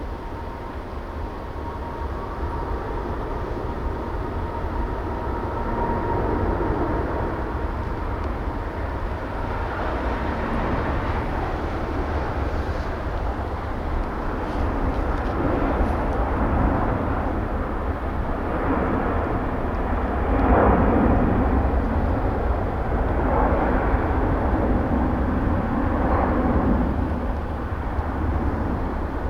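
Jet airliner taking off: a steady high engine whine that fades over the first few seconds while a broad engine roar swells and peaks about two-thirds of the way through. Strong wind rumbles on the microphone underneath.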